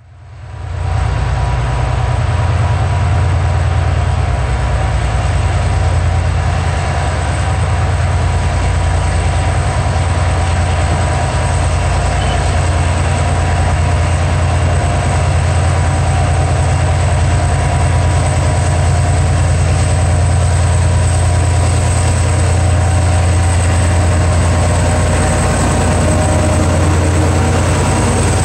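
HŽ series 2044 diesel locomotive's engine running under load, a deep, steady drone, as it hauls a heavy freight train on a loaded test run and comes up close. The sound fades in over the first second.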